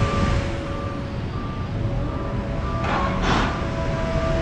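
Back-up alarm of an airport ground-service vehicle beeping at a steady single pitch, about two beeps a second, over the rumble of apron machinery. A short hiss comes about three seconds in.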